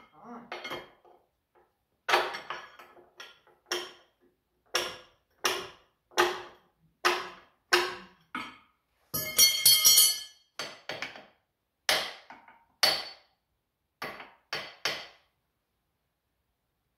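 A hammer striking steel: about fifteen separate ringing blows at irregular intervals of roughly half a second to a second, with a quick clattering run of hits near the middle, then the blows stop.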